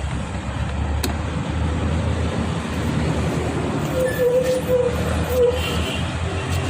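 Steady low rumble of road traffic, with a short wavering tone about four seconds in.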